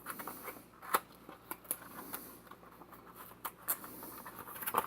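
Packaging being handled and opened by hand: crinkling with a run of irregular sharp clicks and taps.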